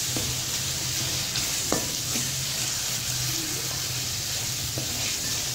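Onion, tomato and spice masala sizzling in hot oil in a metal kadhai as it is roasted (bhuna), with a spatula stirring and scraping through it and a few light knocks of the spatula against the pan, one clearer about two seconds in.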